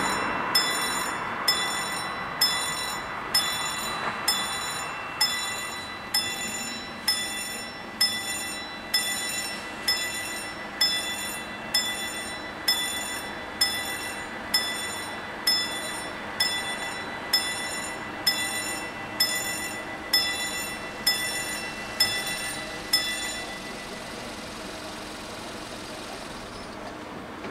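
Level crossing warning bells of a WSSB-type German crossing, striking about once a second with a ringing tone, warning of an approaching train while the half-barriers come down, then stopping near the end. A passing car fades out in the first seconds.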